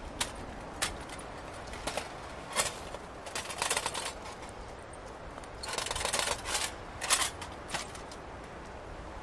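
Hands handling a folding metal twig stove and gear on the forest floor: scattered light clicks and knocks, two longer scraping rustles about three and a half and six seconds in, and a sharp click just after seven seconds.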